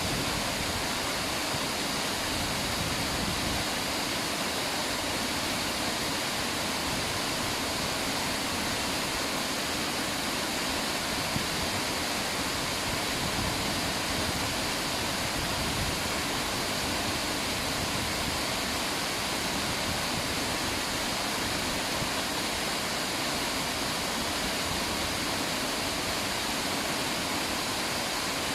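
River water rushing steadily, an even unbroken hiss with no distinct splashes.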